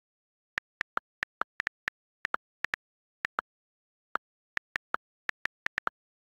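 iPad on-screen keyboard click sounds: about two dozen quick key taps at an uneven typing pace, with dead silence between them.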